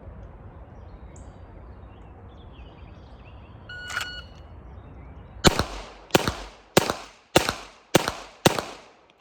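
A shot timer's start beep, then a pistol fired six times in a bill drill, a little under two shots a second, each shot with a short echo tail.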